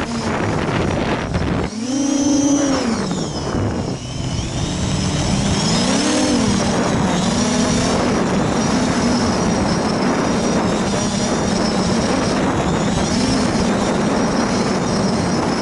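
Quadcopter's four Sunnysky 2212 1400Kv brushless motors spinning 8x4.5 propellers, a loud steady buzz heard from the onboard camera. The pitch swoops up and back down about two seconds in and again about six seconds in as the throttle changes, then holds steady.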